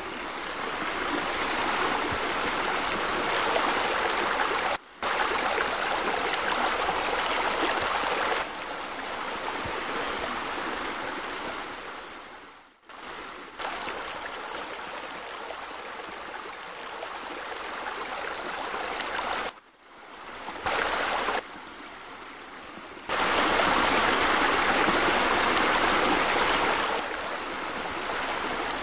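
Running, splashing water as from a pool waterfall and spa spillover. It comes in sections that cut abruptly from one level to another, with short dropouts about five and thirteen seconds in and a louder stretch near the end.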